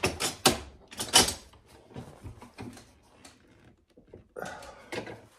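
A few sharp wooden knocks, three loud ones in the first second or so, then softer taps and a brief scuff, as a walnut screwdriver handle is driven down onto its freshly epoxied blade against a wooden workbench.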